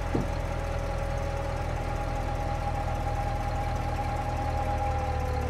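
Large propane-powered forklift's engine running steadily while it holds a heavy machine on its forks, with a steady whine over the low engine rumble.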